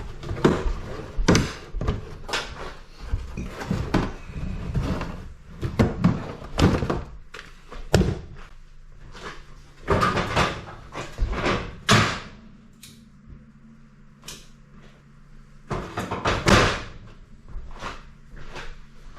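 Irregular clunks, knocks and bangs of hard things being handled and set down, about one every second or so. A steady low hum shows for a few seconds past the middle.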